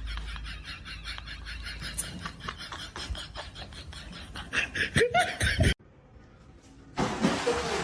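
A person laughing in quick rhythmic pulses, cut off abruptly a little under six seconds in. After about a second of near silence, a different sound with a hiss-like noise and a voice starts.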